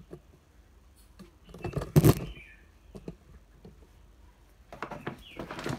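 Hard plastic tool case being handled on a tiled floor: one loud knock about two seconds in, then light clicks and taps near the end.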